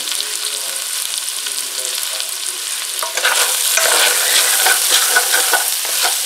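Diced potatoes, corn and beans sizzling in a stainless steel pan. About three seconds in they are stirred and scraped around the pan, and the sizzling grows louder and busier.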